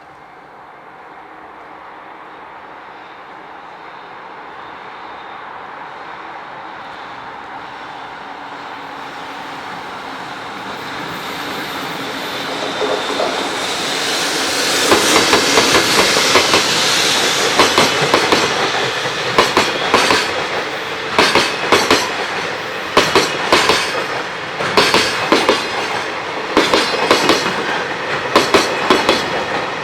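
Freight train hauled by a JR Freight EF65 2000-series electric locomotive approaching and passing: a steadily building rumble that peaks about halfway through, then wagon wheels clattering over rail joints in quick, evenly spaced groups of clicks.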